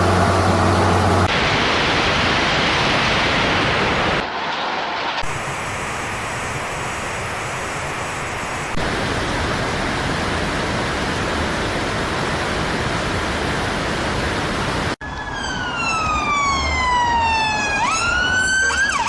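Steady rushing noise of heavy rain and floodwater, changing abruptly at several cuts between clips. In the last four seconds an emergency vehicle siren wails, its pitch falling slowly and then sweeping sharply back up near the end.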